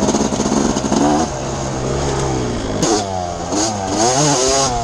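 Suzuki RM250 single-cylinder two-stroke motocross engine at full throttle under riding load, its pitch climbing and dropping several times, with a sharp break about three seconds in.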